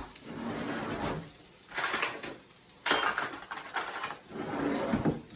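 A utensil clattering and scraping against a bowl as eggs with a little added water are whisked, in several uneven bursts.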